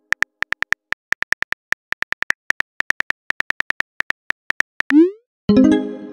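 Rapid phone keyboard clicks as a text message is typed letter by letter, then about five seconds in a short rising swoosh as the message is sent, followed by a brief pitched chime.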